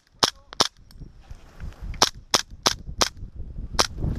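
Airsoft pistol firing eight sharp shots: three quick ones at the start, then after a pause four in a steady run about a third of a second apart, and a last one near the end.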